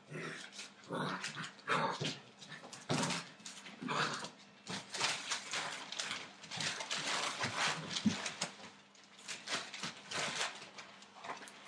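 Eight-week-old Entlebucher Mountain Dog puppies play-fighting, giving short dog vocalizations in irregular bursts as they wrestle and chase, mixed with scuffling on the floor.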